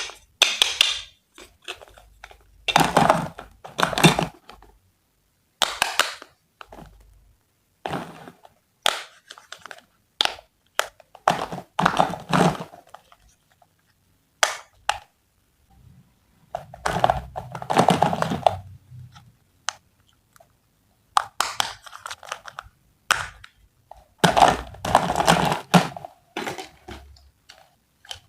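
Close-miked crunching, cutting and knocking sounds in separate bursts of about a second, with short quiet gaps between them, as fruit is cut and handled with kitchen utensils.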